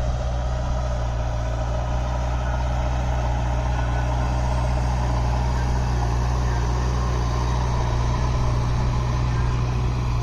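JCB backhoe loader's diesel engine running steadily, a low, even drone.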